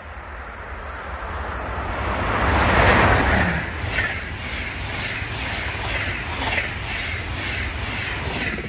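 A DB class 103 electric locomotive and its train approaching and passing at speed. The rushing noise builds to a peak about three seconds in, with a brief falling tone as the locomotive goes by. Then comes a regular clatter of the coaches' wheels, about two beats a second.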